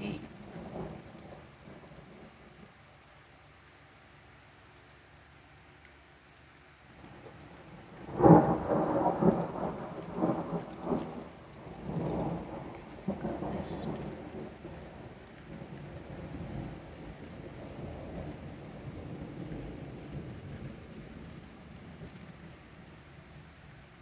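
Thunder over rain: a sudden loud crack about eight seconds in rolls on in several rumbles, then slowly dies away.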